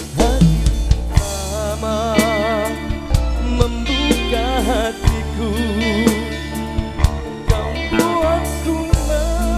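Campursari koplo band playing an instrumental passage: a wavering melody with strong vibrato over a deep, steady bass and sharp drum hits.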